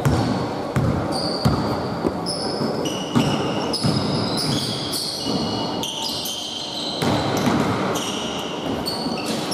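A basketball bouncing on a hardwood gym floor in repeated thuds, with many short, high-pitched squeaks of sneakers on the court as players run and cut.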